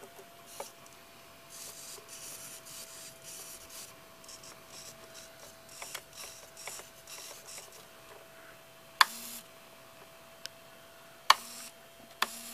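Small RC servos whirring in short spells as the transmitter sticks are moved, over a steady thin high hum, with a few sharp clicks in the second half.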